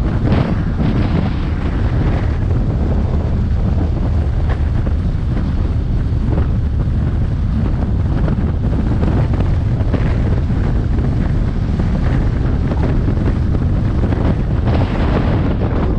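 Wind buffeting the microphone of a camera on a moving motorcycle, a steady loud rumble, with the bike's engine and road noise running under it.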